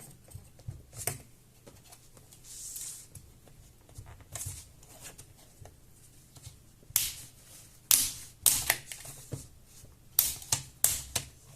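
Sharp clicks and snaps of a Toshiba Satellite C50 laptop's plastic parts being handled and worked loose by hand. The clicks are sparse at first and come louder and closer together over the last few seconds.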